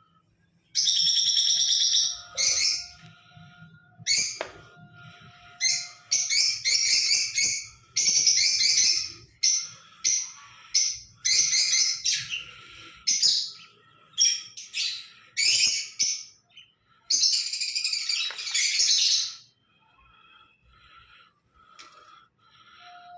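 A pair of small pet parrots chattering and chirping in shrill bursts of one to two seconds, with short pauses between.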